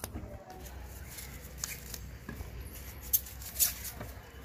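Foam mesh sleeves on apples rustling and crinkling as they are pulled off by hand, with scattered small clicks and two sharper sounds a little after three seconds in.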